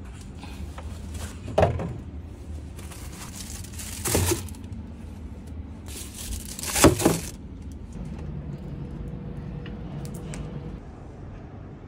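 Compact refrigerator doors and shelves being handled: three sudden rattling knocks, the loudest about seven seconds in, over a low steady hum.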